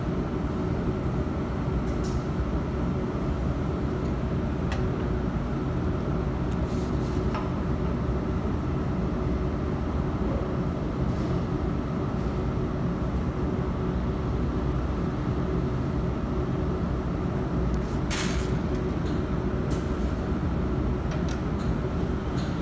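Steady machine drone and hum, with a few light clicks and knocks.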